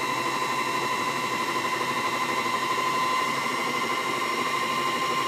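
Janome FM725 felting machine running steadily, its single cut-down hand felting needle punching wool into fabric. The motor's hum carries a steady high whine.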